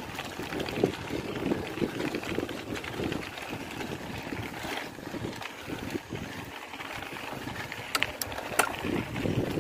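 Bicycle riding along a bumpy dirt trail: tyres rolling and crunching over the ground, with the bike rattling. A few sharp clicks come near the end.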